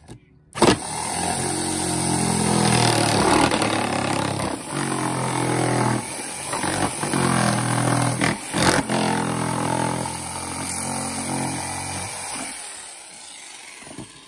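Ryobi jigsaw running, its blade cutting a round hole through 3/4-inch plywood. The saw starts about half a second in, runs steadily with a few brief dips as the cut is steered around the curve, and stops about twelve seconds in.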